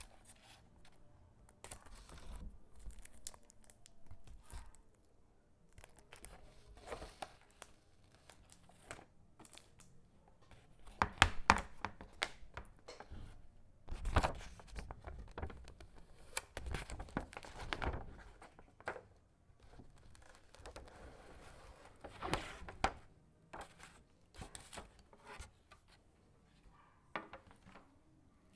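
Packaging handled by hand: plastic and paper crinkling and tearing, broken up by small clicks and knocks. The loudest stretches of crinkling come about 11 to 18 seconds in and again at about 22 seconds.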